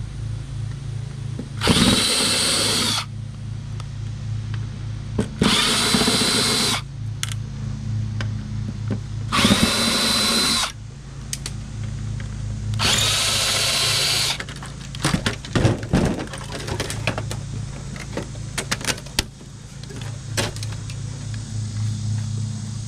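Cordless drill/driver backing screws out of a flat-screen TV's circuit board, in four short runs of a second or so each with a steady whine. A string of light clicks and knocks follows as the board is handled and lifted out.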